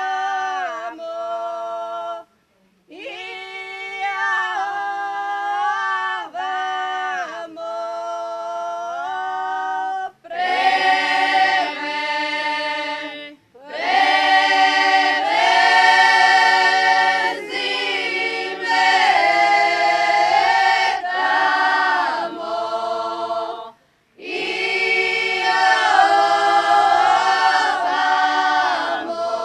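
Folk singing group of mostly women singing a traditional song a cappella, in phrases with short breaks between them. The singing is thinner and quieter for about the first ten seconds, then fuller and louder as more voices join.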